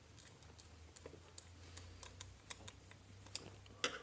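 Faint scattered clicks and ticks of a screwdriver turning the terminal screw of a plastic switch and of the switch being handled, with a sharper click near the end.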